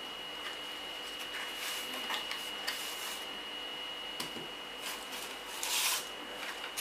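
Paper and cardboard packaging being handled: soft rustling and small knocks from a paper manual and a small cardboard box, with a louder paper crinkle near the end. A faint steady high whine sits underneath.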